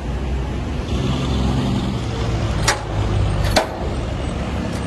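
Steady low rumble of idling vehicle engines, with two sharp knocks about a second apart near the middle.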